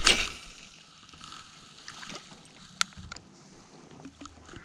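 Casting with a spinning rod: a brief loud swish as the arm sweeps past, then quiet with a few small ticks from the spinning reel and one sharp click about three seconds in.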